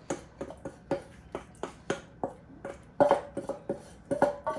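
A wooden spoon knocking and scraping washed red lentils out of a metal bowl into the pot: a run of light clicks about three a second, with a faint ringing tone in the second half.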